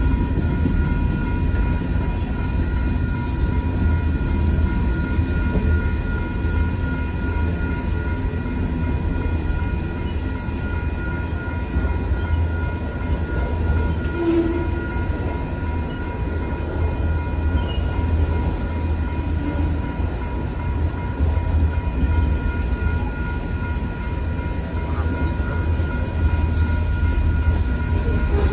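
Freight cars of a Union Pacific manifest train rolling through a grade crossing: a steady low rumble of wheels on rail. Steady high ringing tones from the crossing's warning signal sound over it.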